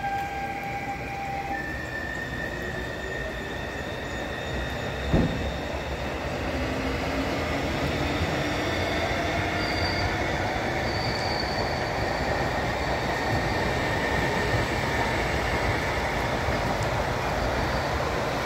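Slovenian Railways Stadler FLIRT electric multiple units moving through the station: the electric traction drive whines in slowly rising, gliding tones over the steady rumble of wheels on rail, with brief high squeals near the middle. A single sharp thump comes about five seconds in.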